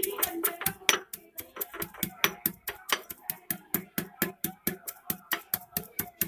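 Stone pestle pounding fried onions in a white stone mortar: rapid, even knocks, about six a second.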